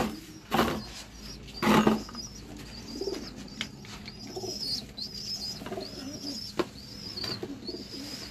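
Domestic pigeons cooing, with a high chirp repeating about once a second from about two and a half seconds in. Two short, loud noises come within the first two seconds.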